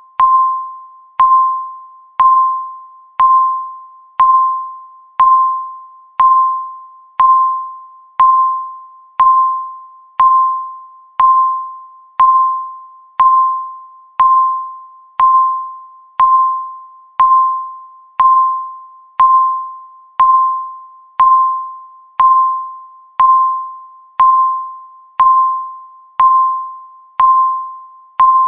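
Countdown timer beeping once a second, about 28 beeps in all. Each beep is a single mid-pitched tone that starts sharply and fades away before the next, like a struck chime.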